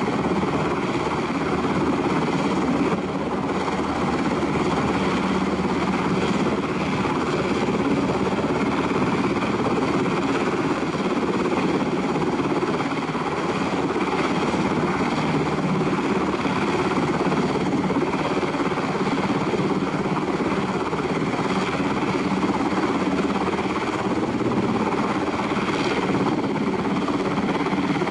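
Sikorsky UH-60J rescue helicopter hovering: steady rotor beat and twin turbine engine noise.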